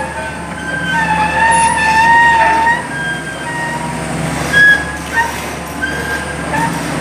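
Hitachi EX200-5 hydraulic excavator running, with a steady low engine hum and short high whines and squeals that come and go and bend in pitch as it works, the longest held for about a second and a half starting about a second in.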